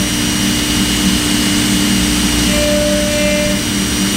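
Thermwood CNC router spindle running steadily with a loud, even whine and hum as a half-inch ball-nose bit takes a roughing pass through a wooden leg blank held on the rotary axis.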